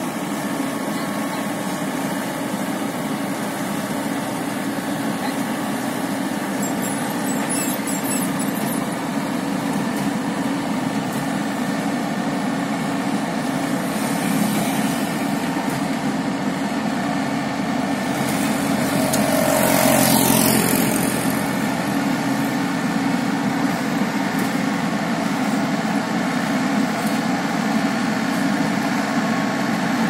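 Yanmar YH850 combine harvester's diesel engine running steadily as the tracked machine crawls down loading ramps off a truck. A louder whooshing swell rises and falls about twenty seconds in.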